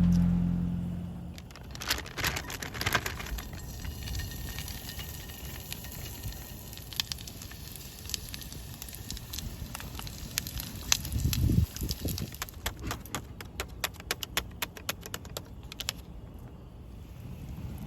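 Wood fire crackling and popping in irregular sharp snaps, over a low rumble of wind on the microphone, with a stronger gust about two-thirds of the way through.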